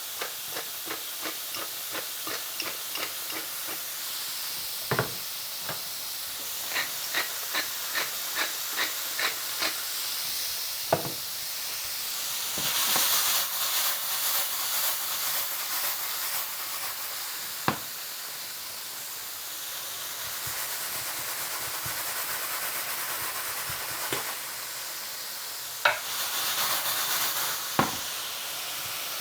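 Chicken legs and peas frying in fat in pans, with a steady sizzle that surges louder twice. Light regular clicks come about twice a second during the first ten seconds, and a few sharp knocks of a utensil against a pan come at intervals.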